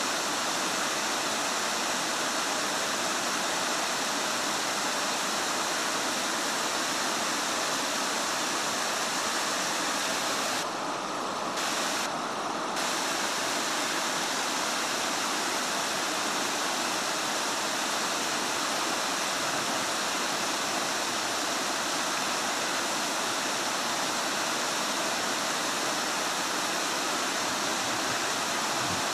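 River rapids: fast whitewater rushing over rocks, a steady, even noise of running water.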